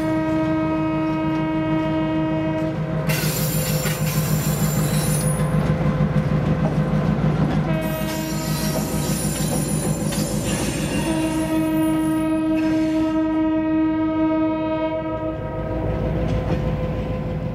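Diesel switcher locomotive's air horn over the steady rumble of its engine. One blast ends about three seconds in, a short toot comes near eight seconds, and a long blast sounds later on. A brief hiss comes a few seconds in, and the sound fades out at the end.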